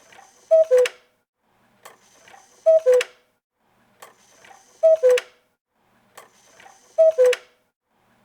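Cuckoo clock calling four times in a steady rhythm, about every two seconds. Each call is the classic two-note cuckoo, a higher note falling to a lower one, preceded by soft mechanical clicking.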